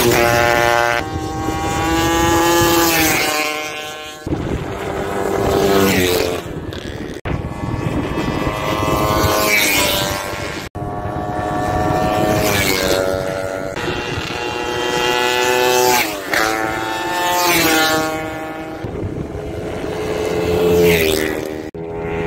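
Vintage racing motorcycle engines running hard on a track, several passes in turn, each engine note rising and falling in pitch as it comes by.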